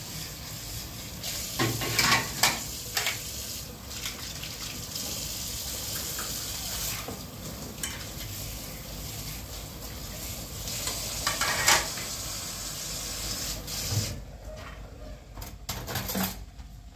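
Kitchen tap running into a steel sink while dishes are washed by hand, with clinks of plates and metal bowls knocking together. The water stops near the end and a few more clinks follow.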